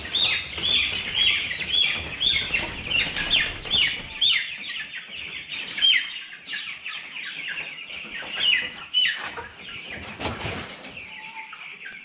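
Cobb 500 broiler chicks about three weeks old peeping: a rapid run of short, high, falling peeps from many birds, which thins out after the first half.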